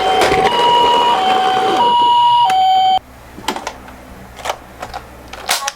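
Two-tone electronic ambulance siren of a toy ambulance minicar, alternating between a higher and a lower tone about every two-thirds of a second. It cuts off suddenly about three seconds in, and a few light clicks and knocks follow.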